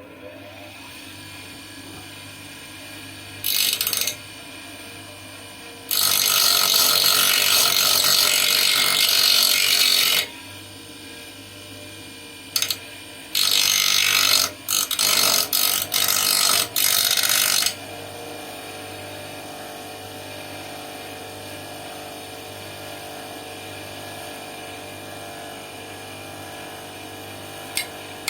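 Hand-held electric grinder running, its disc grinding down a cut edge in several bursts: a short one, a long one of about four seconds, then a broken run of shorter touches. It is deburring a freshly cut edge.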